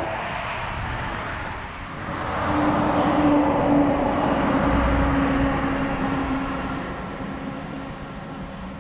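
Heavy dump truck driving past: its engine drone and tyre noise swell to a peak about three seconds in, the engine tone dropping slightly as it goes by, then fade away.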